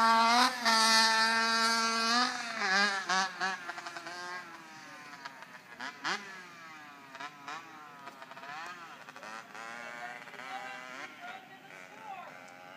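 Dirt bike engine held steady at high revs for about two seconds, then revving up and down through gear changes as it moves off, growing steadily fainter.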